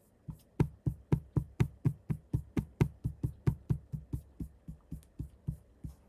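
Software drum playback from GarageBand: a drum struck in an even run of about four hits a second, the hits growing softer over the last few seconds.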